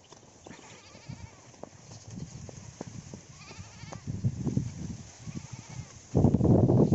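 Footfalls and rustling of a person running with two dogs over a grassy dirt track, with a faint wavering high call twice. From about six seconds in, a sudden loud rumble of wind or handling on the phone's microphone covers everything.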